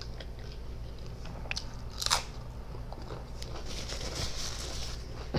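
Potato chips being bitten and chewed: a few sharp crunches, the loudest about two seconds in, then quieter chewing.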